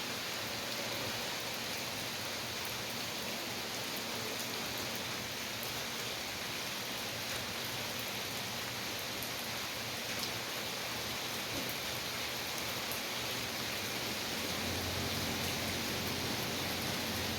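Steady rain falling, a dense even hiss with faint scattered drop ticks. A low hum comes in near the end.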